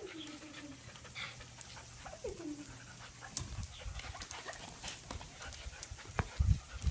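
Puppies playing rough with larger dogs: a puppy gives two short whimpers that fall in pitch, about two seconds apart, among scattered light clicks, with a couple of low thumps near the end.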